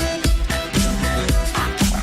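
Background dance music with a steady, driving beat.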